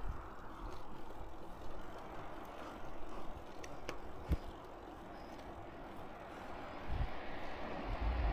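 Steady outdoor road and traffic noise with wind buffeting the microphone in low gusts, and a single sharp click just past four seconds in.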